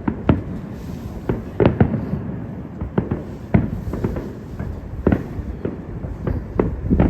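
Aerial fireworks shells bursting in an irregular series of sharp booming bangs, some close together, over a continuous low rumble and crackle from the display.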